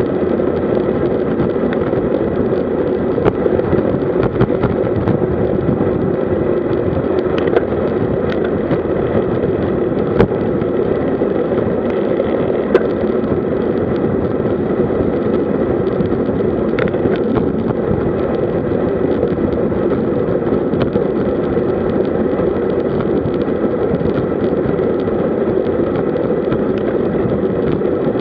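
Steady wind rush on a bike-mounted camera's microphone with tyre noise from a road bike at about 45–50 km/h. A few sharp clicks stand out, about ten and thirteen seconds in.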